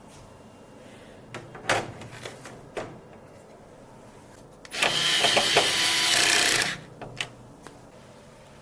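A few light clicks and taps of hardware being handled, then a small power tool runs in one steady burst of about two seconds.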